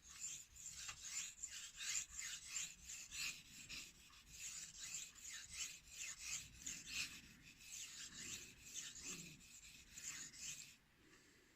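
Steel knife blade stroked back and forth across a 5000-grit whetstone, a quick run of faint scraping strokes that stops about a second before the end. These are sharpening passes that grind metal off the edge to raise a burr.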